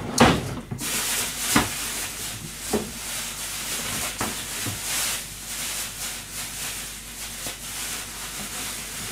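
Kitchen work sounds: a few sharp knocks of utensils and produce being handled on the counter, roughly one every second or so and loudest at the start, over a steady hiss.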